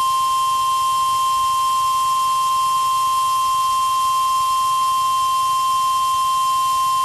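NOAA Weather Radio warning alarm tone, a single loud, steady tone of about 1050 Hz held unbroken, the signal that an urgent weather alert message follows.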